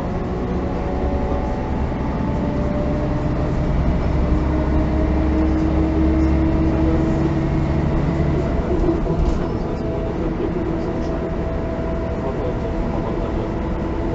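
Mercedes-Benz O405N1 city bus engine idling while the bus stands still, heard inside the passenger saloon. It runs steadily with a low drone and several steady tones, growing a little louder between about four and nine seconds in.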